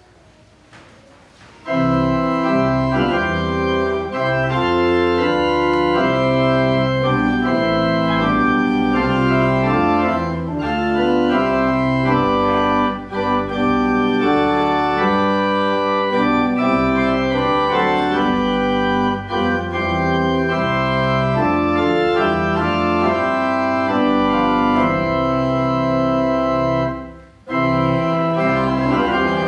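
Church organ playing a hymn in sustained chords that change every second or so. It starts about two seconds in and breaks off briefly near the end, between phrases.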